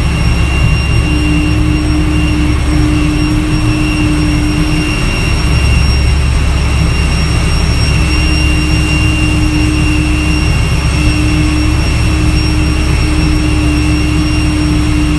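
Steady pushback noise heard from inside a towbarless aircraft tug's cab: the tug's heavy engine running under load, with a steady high turbine whine from the Airbus A320 it is pushing. A humming tone cuts in and out every second or two.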